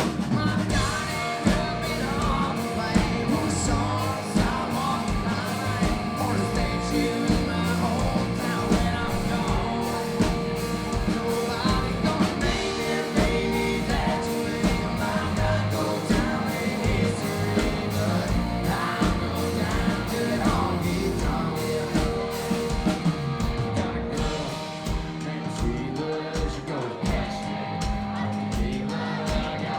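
Live country band playing a song with a lead singer over guitar, bass and a steady drum beat.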